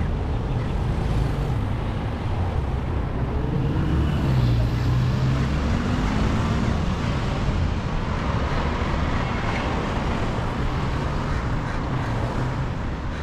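Steady road traffic noise from a busy road. A louder vehicle engine passes close about four seconds in, its pitch shifting as it goes by.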